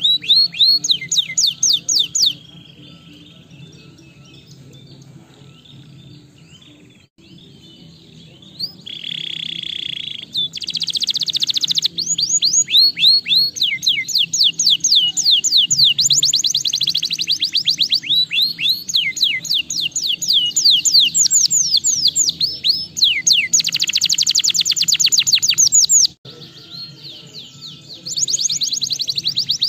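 Domestic canary singing: a song of rapid trills, each a fast run of repeated high chirps, changing speed from phrase to phrase. The song breaks off for several seconds after about two seconds and briefly again near the end.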